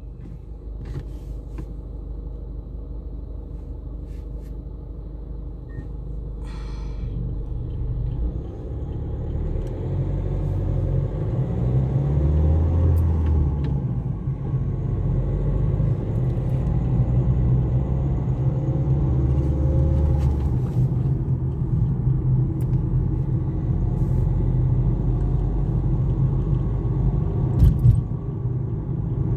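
Tram running with a low rumble that grows louder over the first ten seconds or so, then holds steady, with a few scattered clicks and knocks.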